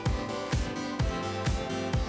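Background music with a steady beat: a low kick drum about twice a second under sustained chords.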